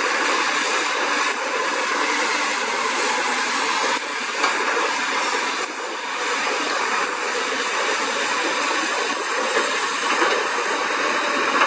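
Caterpillar 320CL hydraulic excavator digging, its diesel engine and hydraulics making a steady hissing mechanical noise, with more excavators working alongside.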